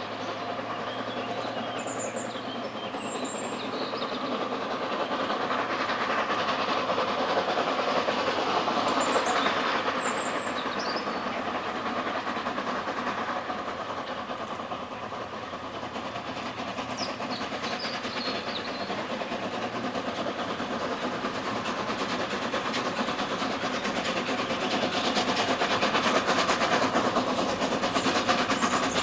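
ČSD class 498.1 'Albatros' steam locomotive working hard under a heavy exhaust, its steady chuffing mixed with the rumble of the train on the rails. It grows louder as the train comes closer near the end. Brief bird chirps come twice, a few seconds in and again around ten seconds.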